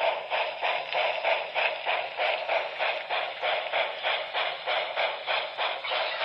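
Recorded steam-locomotive chuffing from the onboard sound system of a Broadway Limited HO scale Paragon4 New York Central Hudson model, about three even chuffs a second.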